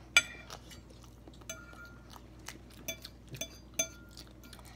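A metal fork clinking against a ceramic plate while food is picked up: about half a dozen sharp clinks, each ringing briefly. The loudest comes just after the start.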